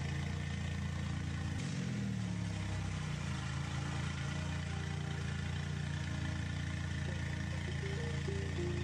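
A vehicle engine running steadily, like a truck idling, with a brief drop in pitch about two seconds in.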